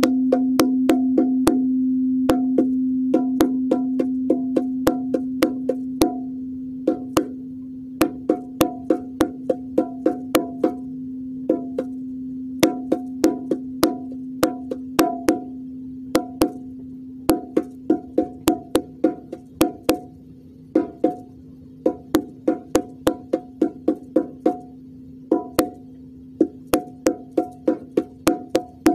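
A singing bowl's steady hum, slowly fading, under quick runs of sharp percussion taps played in short rhythmic phrases of several taps a second.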